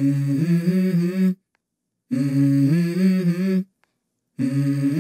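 Music: a wordless hummed vocal melody in phrases of about a second and a half, with short silent breaks between them.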